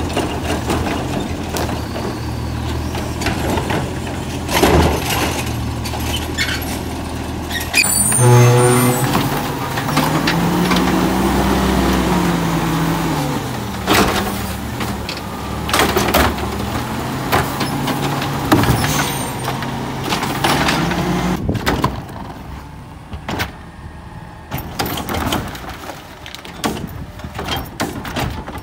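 Natural-gas automated garbage trucks running while their hydraulic arms lift and tip carts: a steady engine hum, an engine speeding up and dropping back about ten seconds in, and repeated knocks as carts bang and trash falls into the hopper. Near the end the scene is quieter, with clunks from a cart tipper dumping a cart.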